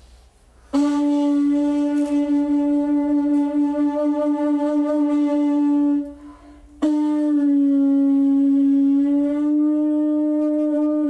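Conch shell trumpet blown in two long, steady blasts with a brief break between them. The first starts about a second in and holds for about five seconds. The second starts about seven seconds in, dips slightly in pitch for a moment, and is still sounding at the end.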